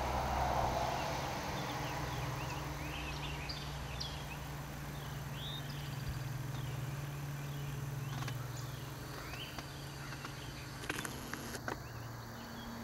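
Outdoor ambience: birds chirping in many short, quick calls over a steady low hum, with a few sharp clicks near the end.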